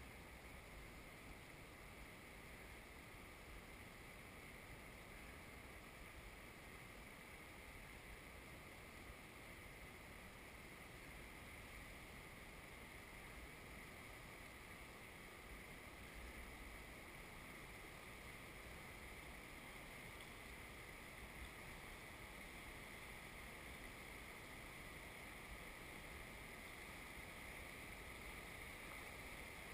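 Faint steady rush of river water around a drifting raft, growing slightly louder toward the end as rapids come near.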